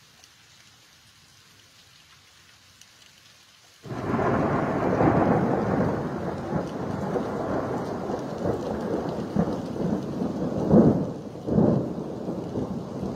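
Thunder from a close lightning strike: a faint hush for about four seconds, then a sudden loud clap that rolls on into a long rumble, with two louder swells close together near the end.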